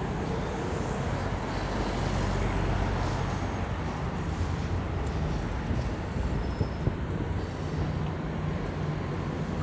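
City road traffic: vehicle engines running and tyre noise in a steady wash of street sound.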